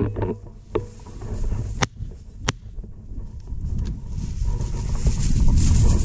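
Footsteps brushing through dry, knee-high prairie grass, with a low rumble of wind on the microphone. Three short sharp clicks come in the first half, and the brushing grows louder toward the end.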